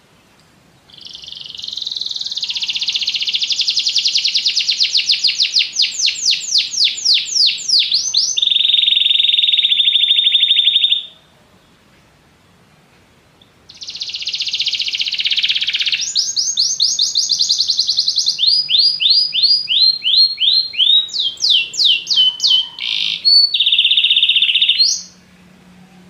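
Yellow domestic canary singing two long song phrases, each a string of fast rolling trills and rapid repeated notes that change from one section to the next, with a pause of a few seconds between the phrases.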